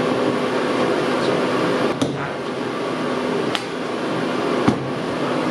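Three sharp plastic clicks and knocks, spaced out over a few seconds, as the plastic body panels of a 2014 Can-Am Outlander 650 ATV are pressed back into place, over a steady background hum.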